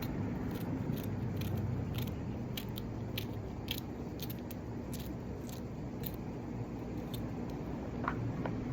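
Light, irregular clicks and small crunches, about one or two a second, over a steady low hum.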